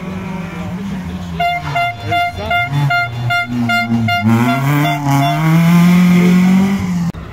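Rally car engine revving through a corner and accelerating away, its note climbing and loudest near the end, then cut off abruptly just after seven seconds. For the first few seconds a horn toots in a rapid run of short blasts, about three a second.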